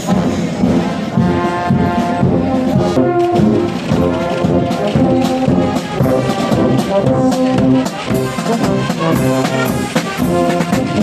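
Brass band playing a tune, trombones and trumpets holding notes over a steady drum beat.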